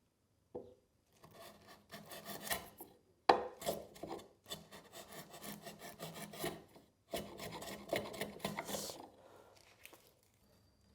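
Japanese hand plane (kanna) shaving a face of a timber joint in several long scraping strokes, taking fine shavings to true the surface flat.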